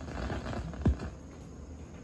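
Stylus tracing a vinyl 45 after the song has ended, giving surface crackle and hiss. A single low thump comes about a second in, then only a quieter steady hiss remains.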